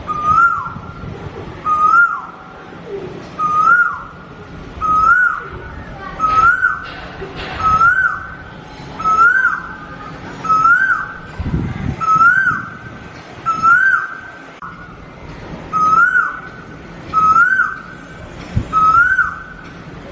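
A whistle-like call, a short steady note that bends up and then drops, repeated evenly about every second and a half.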